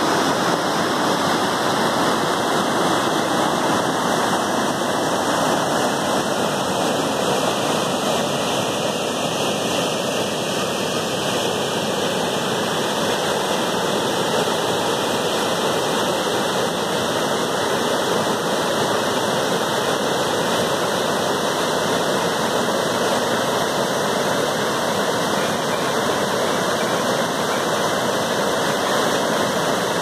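Small rocky waterfall rushing steadily, white water pouring down over the rock.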